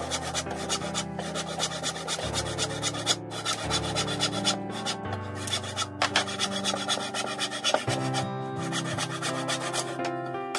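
Handsaw cutting through a 1x2 wooden board in repeated back-and-forth strokes, over background music.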